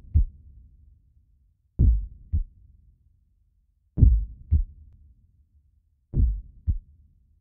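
Slow heartbeat sound, a deep lub-dub double thump repeating about every two seconds.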